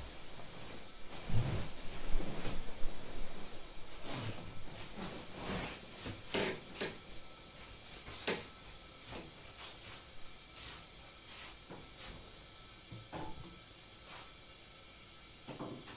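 Soft footsteps on tatami mats and rustling of kimono and hakama as a person rises and walks away: a string of light knocks and shuffles, loudest in the first few seconds and thinning out after about seven seconds. A faint steady hiss from the iron tea kettle simmering on its brazier runs underneath.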